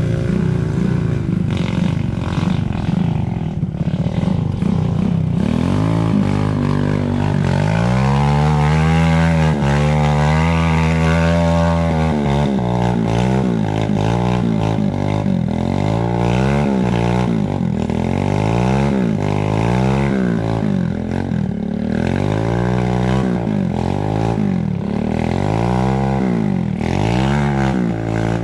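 Trail motorcycle engine revving up and down under throttle. It holds one high, steady pitch for several seconds about a quarter of the way in, then rises and falls again every second or two.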